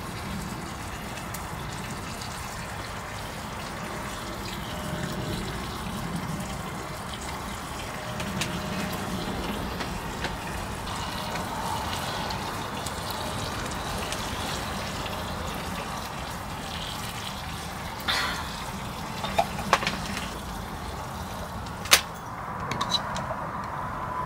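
Steady rain falling on a canvas tent, heard from inside, with a few sharp clicks and knocks near the end.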